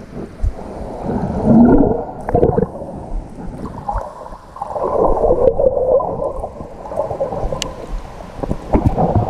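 Muffled rushing and gurgling of water heard through a camera held underwater in shallow water, swelling and easing as it moves, with a few sharp knocks.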